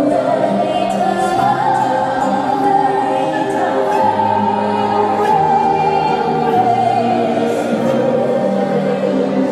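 Handsaw bowed as a musical saw: one long singing note that slides up over the first few seconds, holds high, and sinks back down near the end, over lower held accompanying notes.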